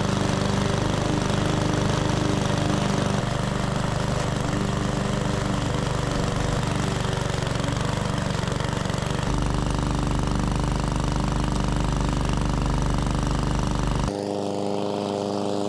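A PowerSmart 144cc OHV gas push mower running at full speed while mulching tall grass; the engine holds steady without bogging down under the load. The noise over the engine note thins out about a second before the end, leaving the engine's even running tone.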